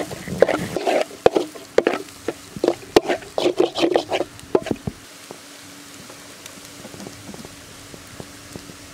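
Spatula scraping and stirring scrambled egg and capsicum against a large metal kadai, a quick run of scraping strokes that stops about five seconds in, leaving only faint ticks.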